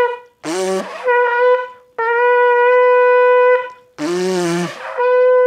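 Goat-horn bukkehorn blown with buzzing lips like a trumpet, all four finger holes closed for its lowest note. Several held notes at the same steady pitch, the longest about a second and a half, broken twice by shorter, harsher, noisier blasts.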